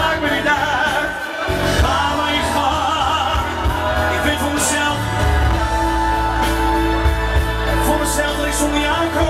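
Live music in a bar: a man singing over loud backing music with a steady bass.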